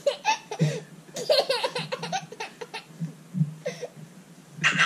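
A one-year-old baby laughing in a string of short bursts.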